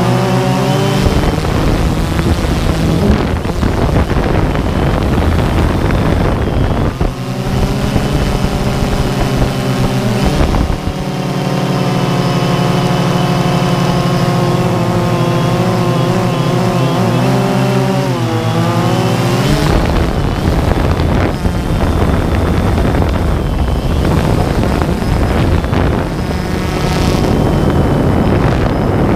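Multirotor drone's electric motors and propellers whining, heard from the camera it carries, several tones shifting in pitch as it manoeuvres and dipping about nineteen seconds in.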